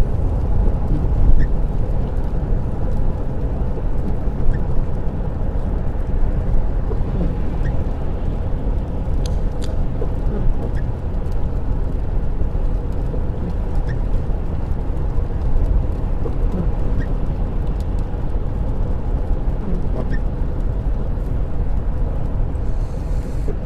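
Steady in-cabin road noise of a car driving at speed on a wet dual carriageway: a low, even rumble of tyres and engine, with a few faint ticks.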